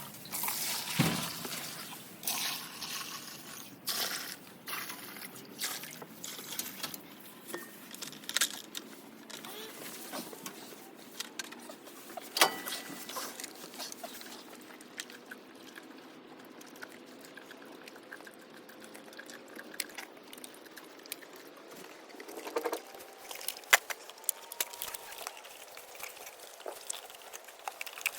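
Warm calf milk sloshing and gurgling as a calf is fed, with scattered knocks and clicks throughout.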